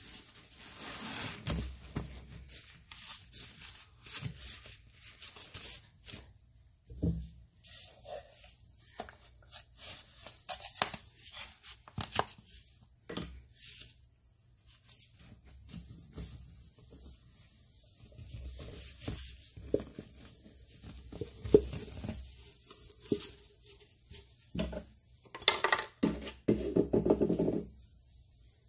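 Rubber-gloved hands squeezing and rubbing a soapy sponge in a sink of thick foam, the lather crackling and squelching in quick irregular bursts. Later, white cleaning powder is tipped out of a tub onto the wet sponge.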